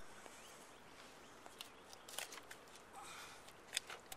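Quiet open-air background with a few faint clicks and taps from hands handling a bass while its gill is being cut.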